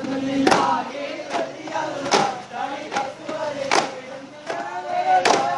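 Duff Muttu: a group of men singing in chorus to sharp strikes of daff frame drums, roughly one strike a second.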